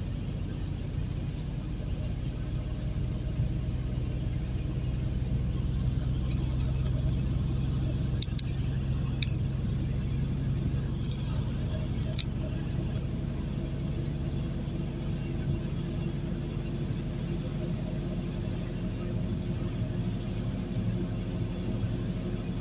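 Truck engine and road noise heard from the cab while cruising and gathering speed on a highway: a steady low drone. A few light ticks come about halfway through.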